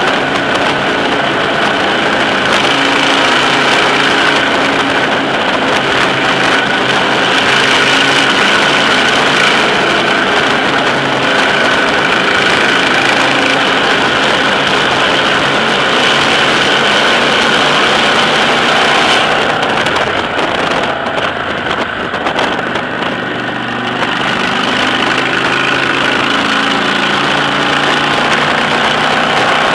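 Motorcycle engine running steadily at cruising speed, with a continuous rush of road and wind noise. At first it is heard inside a road tunnel. About two-thirds of the way through the sound changes and briefly dips as the bike rides out into the open.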